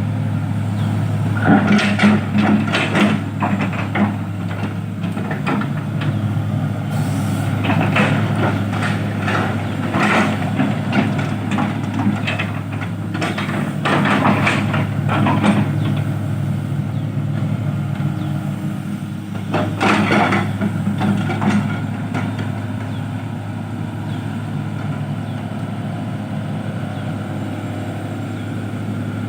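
Heavy-equipment diesel engine running steadily, with several stretches of rattling and clanking over it.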